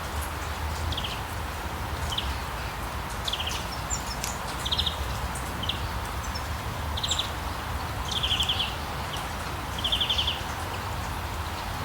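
Steady rain hiss with a songbird repeating short, fast-pulsed trilled notes every second or two, and a few sharp drip ticks.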